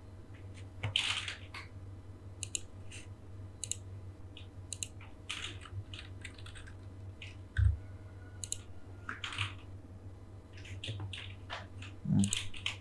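Scattered, irregular clicks and taps of a computer keyboard and mouse over a low steady hum, with one louder dull thump about eight seconds in.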